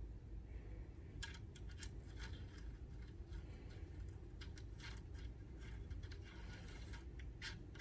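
Faint, scattered small clicks and light scrapes of a metal thread protector being screwed onto the threaded 1/2x28 muzzle of a CZ 457 Jaguar .22 LR rifle barrel.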